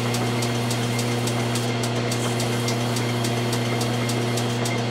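Logan metal lathe running steadily: a constant low hum with a light, regular ticking about four or five times a second, while 320-grit abrasive paper is held against the spinning rifle barrel's muzzle to polish the crown.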